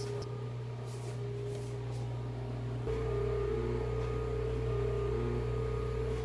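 Electric motor of an automatic stirring pot (panela mexedora) humming steadily as its paddle turns through a pot of brigadeiro mix. The hum gets a little louder about three seconds in.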